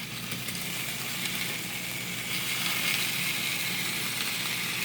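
Beer-marinated chicken breast sizzling steadily on a George Foreman electric contact grill.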